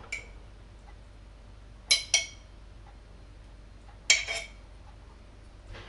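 A spoon clinking against a glass jar and a stainless-steel mixing bowl as applesauce is spooned out: a few sharp clinks, two close together about two seconds in and a short cluster about four seconds in.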